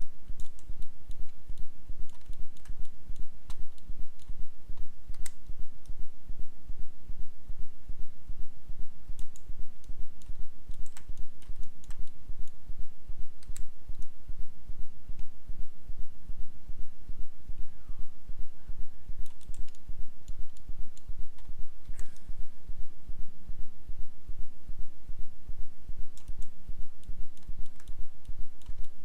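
Occasional sharp computer mouse and keyboard clicks over a steady low throb that pulses evenly several times a second.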